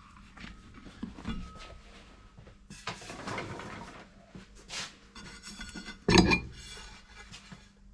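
Handling clatter from a turntable being taken apart: the rubber mat is pulled off and the metal platter is lifted from its direct-drive spindle, with scattered clicks and rubs and one loud knock a little after six seconds in.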